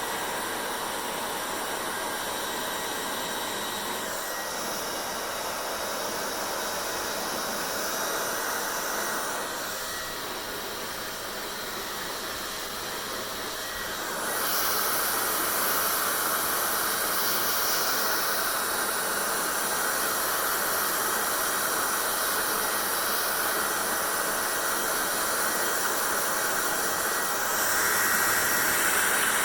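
Hair dryer running, a steady rushing hiss of blown air. It dips slightly about a third of the way in, then grows louder from about halfway and again near the end.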